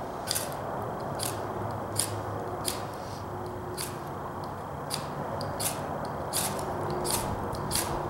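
Small knife scraped down a ferrocerium (ferro) rod, striking sparks onto a bird-nest tinder bundle: about a dozen short, sharp rasping strikes, roughly one a second.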